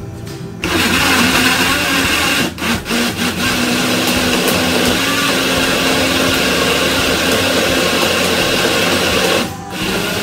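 Electric countertop blender switched on and running, blending an avocado shake, with a steady motor hum under the churning. It cuts out briefly a few times about two and a half seconds in, as if pulsed, and again for a moment near the end.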